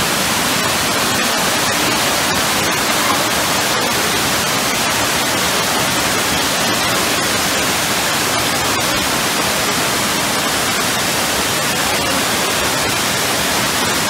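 Water of a waterfall cascading down over rocks: a steady, loud rushing noise with no change.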